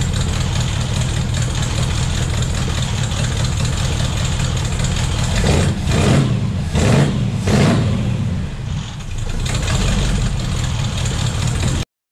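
A car engine idling steadily while its cooling system is topped up with antifreeze, with three brief louder surges about halfway through. The sound cuts off abruptly near the end.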